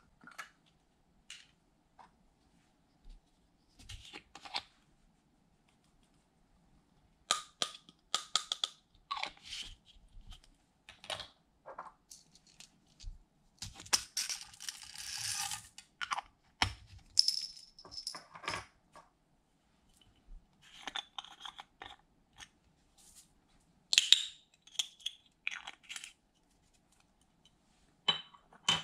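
Small plastic beads and sequins rattling out of a container and pattering into a glass baking dish, with scattered clicks from small plastic containers being opened and handled; a longer pour about halfway through.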